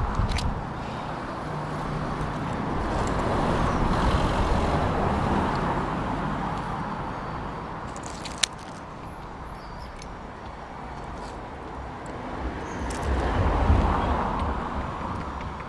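Road traffic: passing cars, a steady noise that swells and fades twice, with a single sharp click about halfway through.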